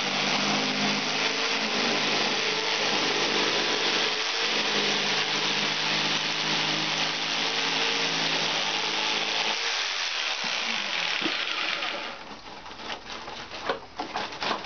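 Electric saber saw with a 3-inch blade running as it cuts through the aluminium fins of an air-conditioner condenser coil, dipping briefly twice. It stops about twelve seconds in, followed by a few light clicks and knocks of metal pieces being handled.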